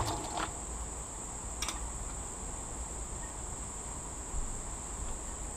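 Steady high-pitched insect chorus, crickets or cicadas, with a single light click about one and a half seconds in.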